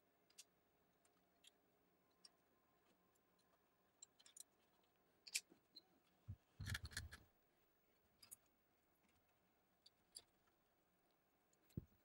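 Mostly near silence, broken by scattered faint clicks and knocks of 3D printer frame parts and wiring being handled, with a short cluster of louder knocks a little past halfway.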